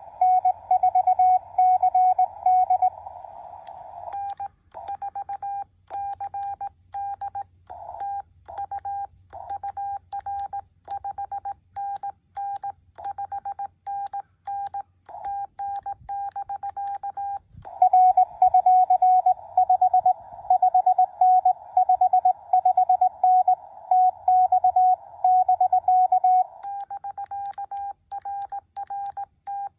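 Morse code exchange on an amateur radio transceiver, in a single mid-pitched tone. A louder keyed signal set in a band of receiver hiss is heard at the start and again for about eight seconds in the second half. Between these comes quieter, clean keying with sharp clicks, typical of the operator's own sidetone and the clicks of the key.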